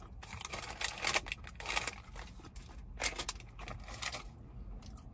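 Small paper fast-food bag crinkling as it is handled, in a string of short rustles that thin out after about four seconds.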